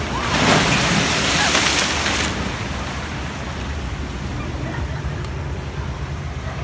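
A large wave crashing against a seawall and spraying over the promenade for about the first two seconds, then seawater washing and sloshing over the flooded quay. The wave is said to have been raised by a passing submarine.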